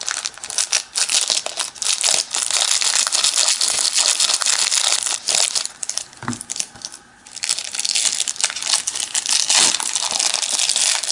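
Crinkling and crumpling of the plastic wrapping on trading-card packs as they are torn open and handled, in two long bouts with a short pause about five seconds in.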